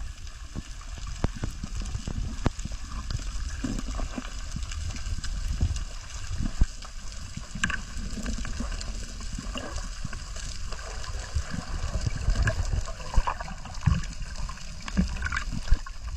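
Water gurgling and sloshing, with many irregular small knocks and bubbling blips over a low rumble.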